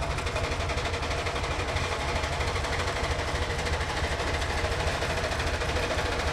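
Climax geared steam locomotive No. 1694 working steam as it draws closer, its exhaust a rapid, even chuffing, the quick beat typical of a geared locomotive whose cylinders drive the wheels through shafts and gears.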